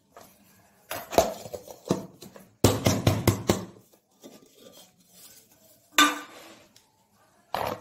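Aluminium cake tin knocking and clattering against a ceramic plate as a baked cake is turned out of it: a knock about a second in, a run of clatter around three seconds, and single sharp knocks at about six seconds and near the end.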